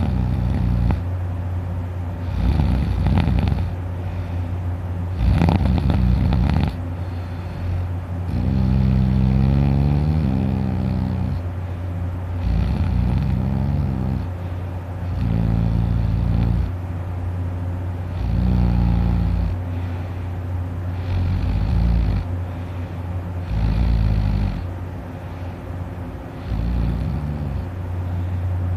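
A man snoring heavily in deep sleep: about ten rough, pitched snores, each a second or two long, coming every two to three seconds. A steady low hum runs underneath.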